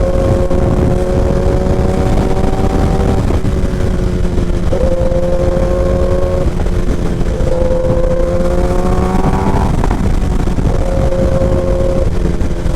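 Kawasaki Ninja ZX-10R's inline-four engine running under way through a short SC Project exhaust. The engine note climbs slowly and breaks or drops back about six times, most sharply about ten seconds in, over a heavy low rumble of wind and road.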